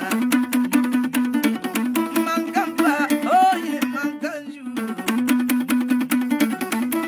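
A kologo, the small gourd-bodied lute of the Frafra, plucked in a fast, steady repeating pattern. A man sings a short phrase about halfway through.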